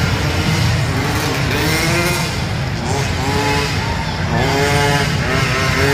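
Radio-controlled monster truck revving as it drives over the dirt track, its pitch rising and falling several times over a steady low rumble.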